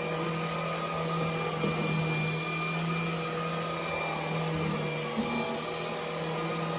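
Roidmi X30 Pro cordless stick vacuum running steadily with the mopping attachment fitted: an even motor hum with a high whine over airflow noise.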